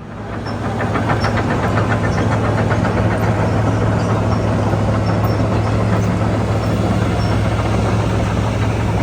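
Heavy earthmoving machine's engine running steadily close by, with a strong low hum and an even rhythmic beat. It swells up over about the first second.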